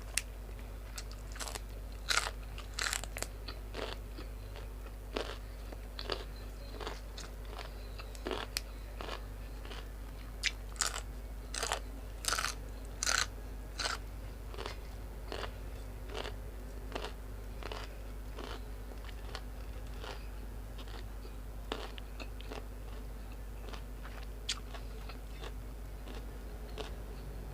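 A person chewing and crunching food close to the microphone. The sharp crunches come in irregular runs, thickest around the middle and thinning out toward the end.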